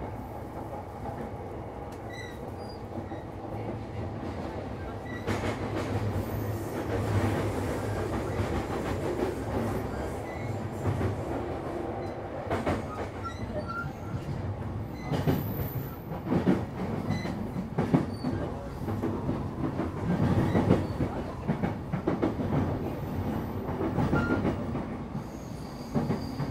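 Running noise of a JR commuter electric train at speed, heard from inside the passenger car: a steady rumble of wheels and running gear, with sharp clacks as the wheels pass over rail joints and points, several times and clustered in the second half.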